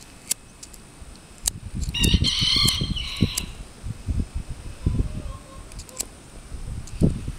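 A rooster crows once, about two seconds in, for about a second and a half. A few sharp clicks of a pocket lighter being struck and low wind buffeting on the microphone run around it.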